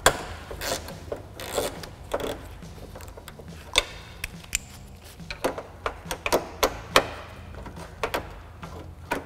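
Ratchet with a 10 mm socket loosening the door handle's mounting nuts inside a car door: irregular clicks and knocks of the tool on the metal, some with a short metallic ring.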